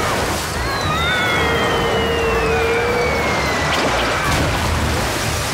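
Cartoon waterfall rushing, with a long falling whistle, the sound effect of something dropping down it, over background music.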